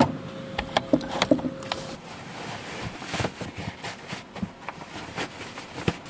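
Rustling of a puffy jacket and its hood being pulled on, with scattered clicks and knocks from moving about and handling gear. A faint steady hum runs through the first two seconds.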